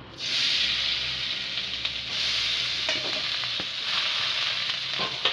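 Rinsed and drained broken wheat (daliya) landing in hot ghee in a kadhai, sizzling loudly from the moment it hits and frying steadily. A few light knocks sound over the sizzle.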